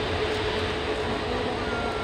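Jet engines of an Airbus A380-841, Rolls-Royce Trent 900s, running at taxi power as the airliner rolls slowly: a steady rush of noise with a constant hum through it.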